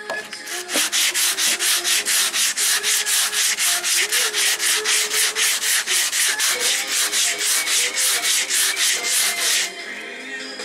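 Hand sanding cured body filler with 80-grit paper on a Dura-Block sanding block, in fast back-and-forth strokes of about four a second. The strokes stop near the end.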